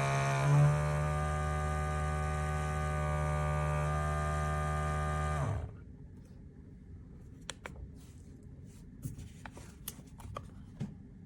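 A steady humming drone with many overtones shifts slightly in pitch about half a second in, then cuts off abruptly about five and a half seconds in. Faint light clicks and taps follow.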